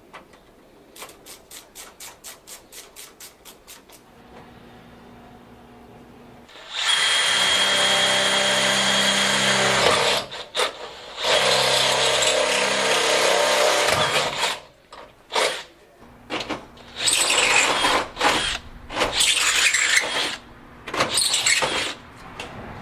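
A run of about a dozen light, evenly spaced clicks, then a power drill running in several bursts: two long runs of a few seconds each, followed by shorter, stop-start trigger pulls.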